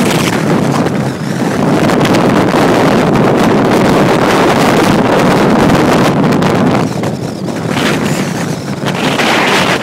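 Strong wind gusts blasting across the microphone in a loud, continuous rush that eases briefly about a second in and twice more near the end.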